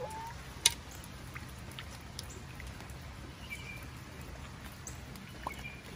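Light rain dripping with scattered small ticks, one sharp tick about half a second in standing out, and a couple of faint, short chicken chirps from hens feeding.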